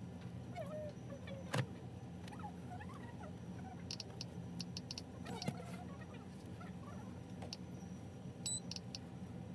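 Clothes hangers clicking and scraping on a metal clothes rack as garments are pushed along and pulled out, with a sharp click about a second and a half in and small clusters of clicks in the middle and near the end, over a steady low hum.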